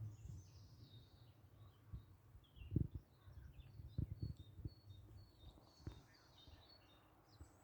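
Faint outdoor birdsong: scattered short, high chirps from small birds, with a few low thumps on the microphone, the loudest about three seconds in.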